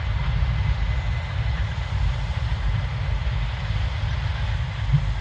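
Case IH 7230 Axial-Flow combine with its six-cylinder diesel running steadily: a deep, constant rumble under an even mechanical hiss. A short low knock comes near the end.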